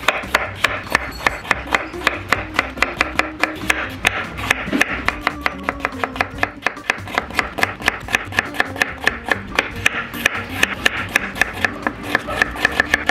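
Kitchen knife chopping raw peeled potatoes into strips on a wooden cutting board: a steady, even run of knocks, about four to five a second.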